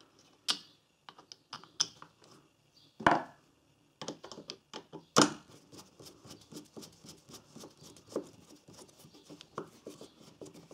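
Small plastic clicks and knocks as the recoil starter's centre retainer and screw are fitted by hand, with two louder knocks about three and five seconds in. From about four seconds in, a rapid run of small ticks and scrapes follows as a screwdriver turns the centre screw down into the starter's plastic reel.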